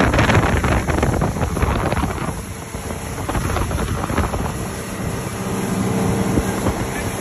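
Boat running under way: a steady engine hum and rushing water from the wake, with wind buffeting the microphone.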